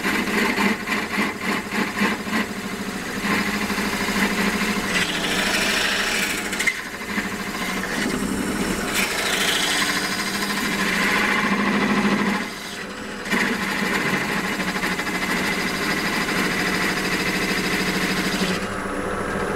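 Wood lathe running with a steady hum while a turning tool cuts into the spinning wooden blank at the parting groove, a rough scraping hiss of wood being cut. The cutting noise drops out briefly about two-thirds through, and the high hiss falls away near the end while the lathe keeps running.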